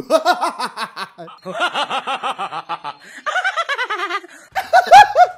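A man laughing loudly in rapid ha-ha pulses. The laugh slides down in pitch about three and a half seconds in and peaks in its loudest burst near the end.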